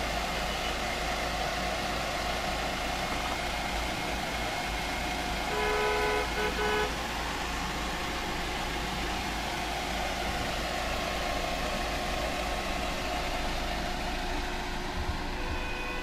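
A car horn honks about six seconds in: one longer blast followed by two quick short ones. It sounds over a steady background noise.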